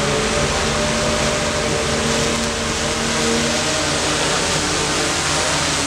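SKYJIB multirotor drone hovering overhead: a steady whir of spinning propellers with several humming tones that waver in pitch.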